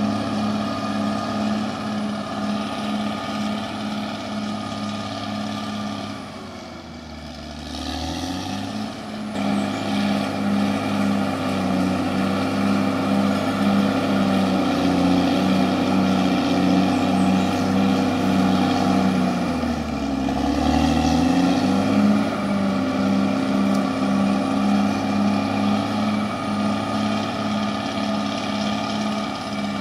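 CAT D6R XL bulldozer's diesel engine running steadily with a regular beat. Its revs drop and pick back up twice, about a quarter of the way in and again about two-thirds through.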